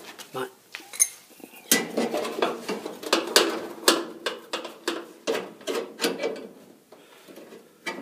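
Light metal clicks and clinks from a thermocouple holder being handled and fitted against a gas furnace's sheet-metal burner assembly. A run of quick, irregular taps starts about two seconds in and eases off near the end.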